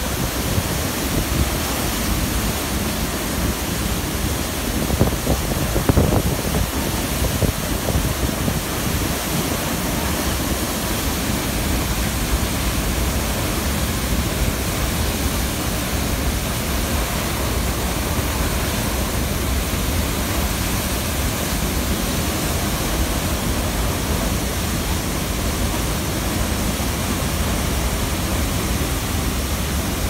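Athirappilly Falls, a large waterfall, giving a steady, even rush of falling water that fills every pitch from deep rumble to hiss. A few brief thumps stand out about five to six seconds in.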